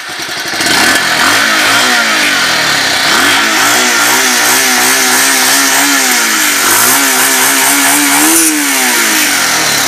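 Bajaj Pulsar 180F's single-cylinder four-stroke engine running in stock form, with the air-intake cap under the seat still fitted. The revs climb and hold, drop about six and a half seconds in, then are blipped up once more and fall back near the end.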